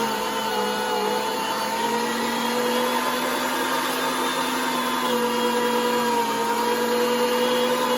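Electric food grinder motor running steadily, grinding pork and vegetables, with a steady hum whose pitch dips slightly now and then.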